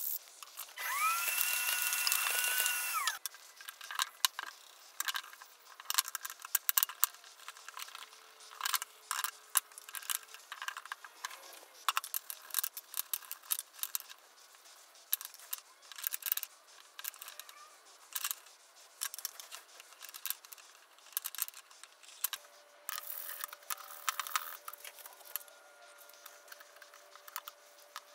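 Hand sanding of a wooden block, then a loud whirring whine for about two seconds that rises, holds steady and falls away. After it come scattered sharp clicks and knocks of wooden pieces and tools handled on a wooden workbench.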